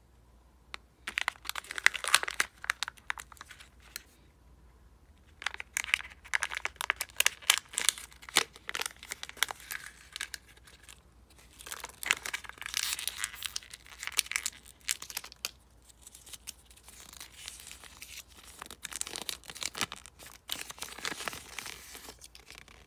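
Kinder Joy egg packaging handled by hand: the foil seal on the plastic half-shell peeled and the plastic crinkled, with the toy's paper leaflet unfolded near the end. It comes in four bouts of crackling and tearing, with short pauses between.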